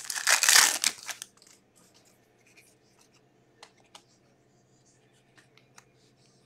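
Foil wrapper of a hockey card pack crinkling and tearing open for about the first second. It is followed by a few faint clicks and slides of trading cards being handled.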